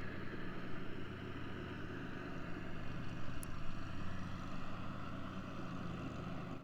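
Steady low drone of a lawn mower engine running, with a faint haze of wind.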